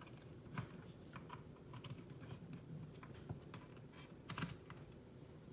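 Faint, irregular small plastic clicks and taps from handling a multimeter and its test leads, with a quick cluster of clicks about four seconds in.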